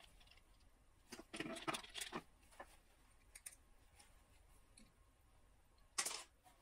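Small electronic parts and packaging being handled by hand: a cluster of light clicks and rustles about a second in, a few faint ticks after, and a short rustling burst near the end.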